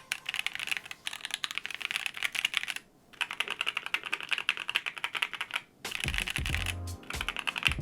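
Fast typing on a Vega 65 custom mechanical keyboard: a rapid, bright, clacky clatter of keystrokes in runs, pausing briefly about three seconds in and again near six seconds.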